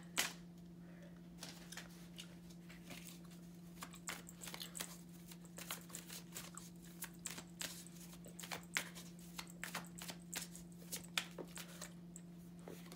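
Tarot cards being shuffled by hand: a run of soft, irregular clicks and card flicks, over a steady low hum.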